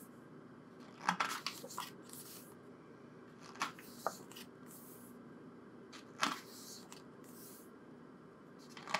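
Pages of a photobook being turned by hand: several brief paper swishes and flaps, with quiet stretches between them.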